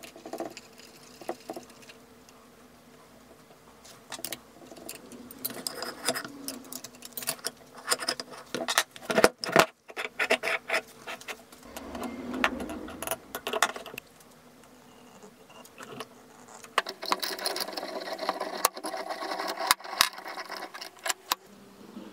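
Metal parts of a heavy drill press vise clinking, knocking and scraping against each other as the vise is reassembled by hand, with the sliding jaw set into the body and the lead screw fitted. The loudest knocks fall around the middle, and there is a stretch of denser scraping near the end.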